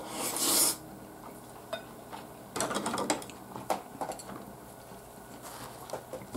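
A spoon and chopsticks clink and scrape against ceramic plates and bowls during a meal, as scattered light clicks. It opens with a short breathy rush of noise.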